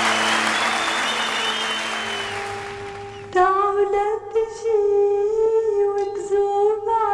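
Applause over music fading away over the first three seconds, then, about three seconds in, a woman's solo voice singing long, sustained notes with a slight waver.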